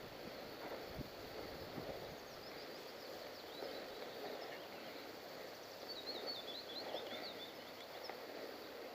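Quiet outdoor ambience: a low rustling haze with a faint knock about a second in, and birds chirping high and quick, a few chirps early on and a rapid run of them a little past the middle.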